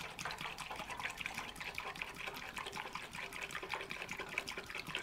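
Petrol pouring from a plastic jerry can through a funnel into a lawn mower's fuel tank: a steady trickling pour with small splashes.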